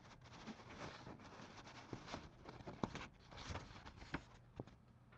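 Faint handling noise: light rustling with a few small clicks scattered through it.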